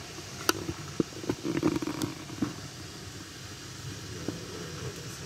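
Cooking in a metal pan on a gas stove: a steady hiss, with scattered clicks and knocks and a short low gurgle in the first half.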